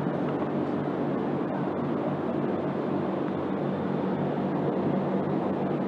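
Truck engine running at idle: a steady low hum that does not change.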